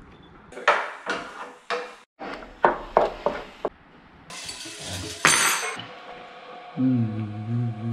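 Cutlery and dishes clattering: a quick series of sharp clinks and knocks, then a brief noisy scrape, and a low steady hum near the end.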